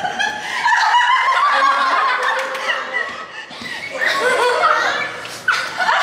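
A group of people giggling and laughing, with some talk mixed in, louder again about five and a half seconds in.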